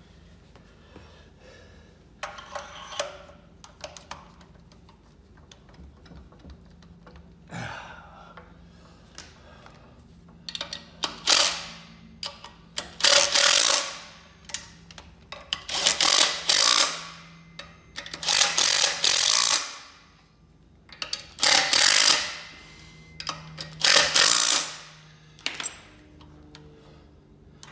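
A power tool run in about eight short bursts of a second or so each, most of them bunched in the second half, snugging down the Loctited clutch bolts before they are torqued.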